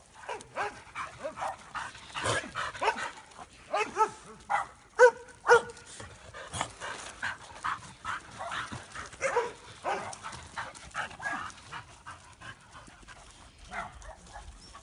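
Dogs barking and yipping in short, irregular bursts, with two sharp, loud barks about five seconds in.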